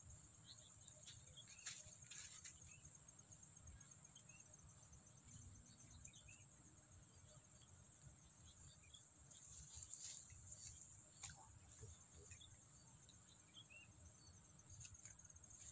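Insects trilling steadily in one continuous high-pitched tone, over a low outdoor rumble, with a few faint short chirps and a couple of soft clicks scattered through.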